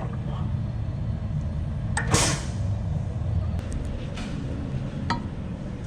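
Steady low engine rumble. About two seconds in there is a click and a short hiss, and a few light clicks follow later.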